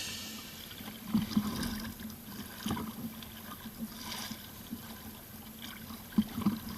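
Quiet water sounds of a kayak on the sea: small splashes and trickles of water around the hull.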